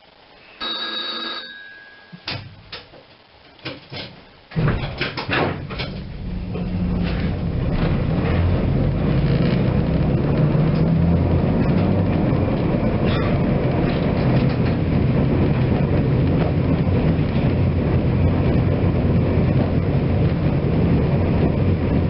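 Inside a Kirnitzschtalbahn tram car: a short ringing signal sounds about a second in, followed by a few clicks and knocks. Then the tram pulls away, its motors and wheels on the rails rumbling steadily and growing louder as it gathers speed.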